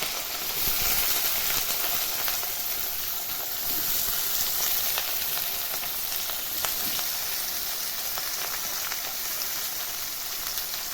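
Chopped onion frying in hot mustard oil in a kadai: a steady sizzling hiss with scattered small pops and clicks.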